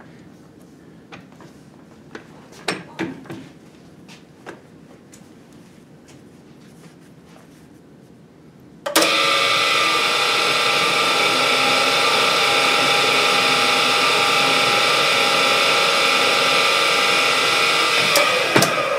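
Drill press boring into a crankshaft counterweight to remove weight for balancing: a loud, steady drilling sound with a held whine that starts suddenly about nine seconds in and stops near the end. Before it, a few light clicks and knocks.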